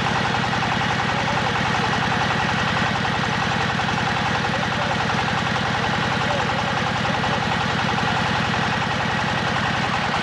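Engine of an AKL-200L hydraulic drilling rig running steadily, with a fast, even pulsing.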